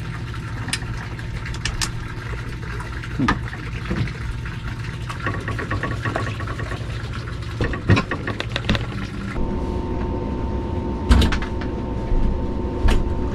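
Metal clicks and clinks of hand tools on a sailboat wheel's hub as the wheel is unbolted from the steering pedestal, over a steady low hum, with a run of quick clicks midway. Near the end come a few sharp knocks as the wheel and the old wheel-pilot ring are carried down wooden companionway steps.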